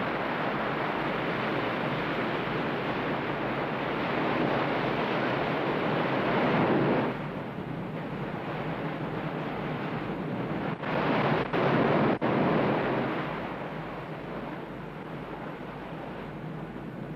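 Surf rushing on a shore, a steady wash that swells and falls, dropping off abruptly about seven seconds in.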